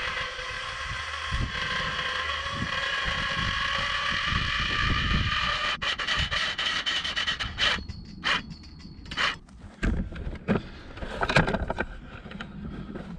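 A steady mechanical whine of several stacked tones, creeping slightly up in pitch, while the tilt-up wind turbine tower is raised. It cuts off about seven and a half seconds in, followed by a few sharp clicks and gusts of wind on the microphone.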